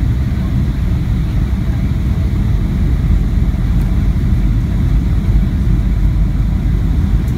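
Steady low rumble of a Boeing 737-800 in flight on approach, heard inside the passenger cabin: its CFM56-7B engines and airflow over the fuselage, with no change in level.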